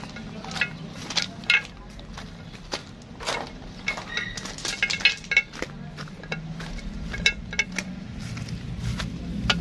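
Metal tools and parts clinking and clicking during hands-on engine installation work: irregular sharp clinks, several a second at times. A low steady hum runs underneath and grows louder in the last few seconds.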